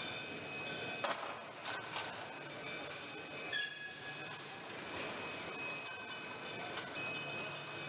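Semi-automatic bottle unboxing machine running, its conveyor and bottle tables making a steady mechanical noise with thin, high squealing tones. There are a few sharp knocks about one and two seconds in, as the gripper and glass bottles are handled.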